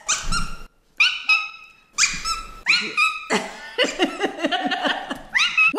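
A person's voice imitating a small dog: several short, high yelps about a second apart, each falling in pitch, then a quicker run of lower, wavering cries.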